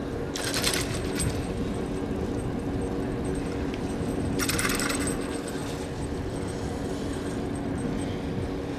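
Ski edges scraping on hard, icy snow during giant slalom turns: short grainy hisses about a second long, one near the start and one about four and a half seconds in, over a steady low outdoor rumble with a faint hum.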